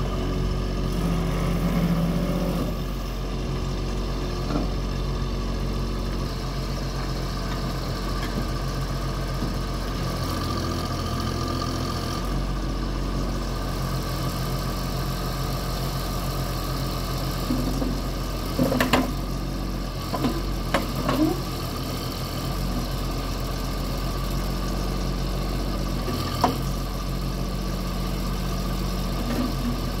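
Compact loader backhoe's engine running steadily at idle while its hydraulics work the loader and backhoe. A few short sharp knocks come about two-thirds of the way through, and one more a little later.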